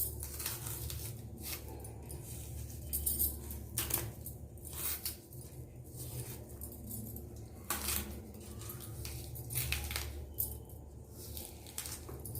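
Thick skin of a nendran plantain being peeled off by hand: irregular tearing and scraping sounds with scattered sharp clicks and crackles.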